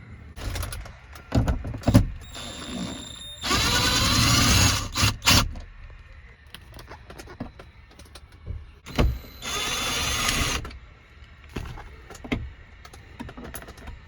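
Cordless screwdriver or drill whirring in two short runs, the second shorter, with clicks and knocks between, as the door-handle screws are backed out.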